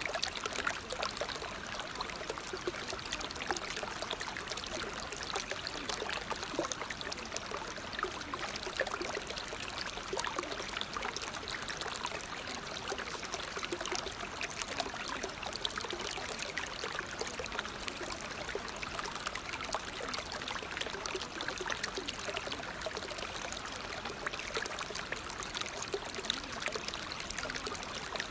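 Running water trickling steadily, with no let-up or change.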